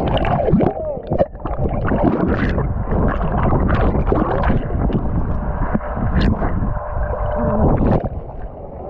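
Water sloshing and gurgling around an action camera in a waterproof housing, heard muffled through the case, with irregular crackles and bubbling throughout.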